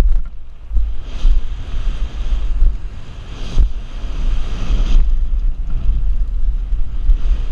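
Wind buffeting the microphone of a camera riding along on a downhill mountain bike at speed, with a steady low rumble that surges in level, and a few knocks from the bike over rough trail, the sharpest about three and a half seconds in.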